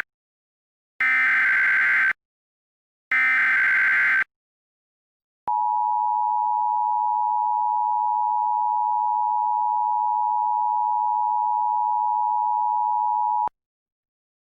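Emergency Alert System SAME header: two more warbling digital data bursts of about a second each, a second apart, completing the triple header. A second later comes the EAS attention signal, a steady two-note tone (853 and 960 Hz) held for about eight seconds that cuts off sharply, announcing an emergency alert.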